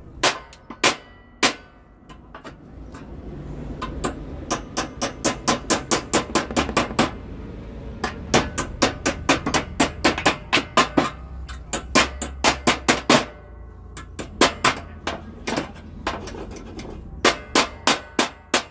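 Hammer blows on the steel mower deck of a John Deere S160 lawn tractor, struck in quick runs of about four or five a second. The deck is being bent back out where the blade had been hitting it.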